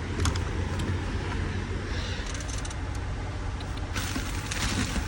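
Hands working on parts around a truck's steering column: a few sharp clicks, then scraping and rustling twice, over a steady low rumble like an idling vehicle.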